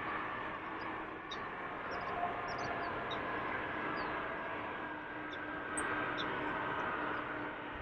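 Steady drone of a Beechcraft King Air 350's twin turboprop engines and propellers, with birds chirping faintly over it.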